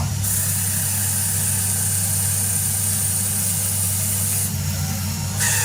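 CNC lathe running and cutting: a steady low hum with a high-pitched whine on top, which drops out for about a second near the end and then comes back.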